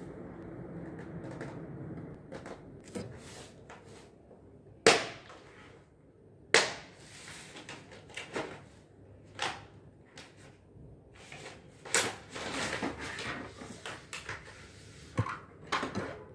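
Plastic-wrapped marker case being handled and unwrapped: crinkling cellophane and plastic rustling, broken by sharp clicks and taps of the plastic case, the loudest about 5 and 6.5 seconds in.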